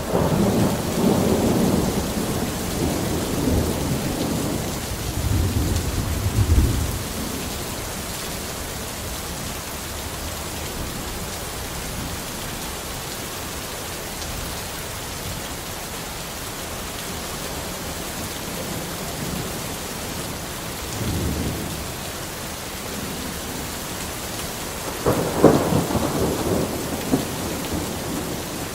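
Thunderstorm: steady heavy rain hissing throughout, with rolling thunder rumbling over the first several seconds, a faint roll about two-thirds through, and a sharper, louder thunderclap that cracks and rumbles near the end.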